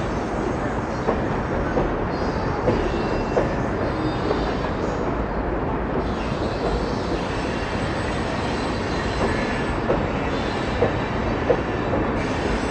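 Freight cars (tank cars and covered hoppers) rolling steadily across a steel girder bridge: a continuous rumble and rattle of wheels on rail, with a few sharp clicks from the wheels.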